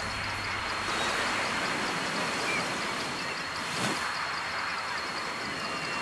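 Steady wash of ocean surf, with a thin high tone running through it and a few faint chirps.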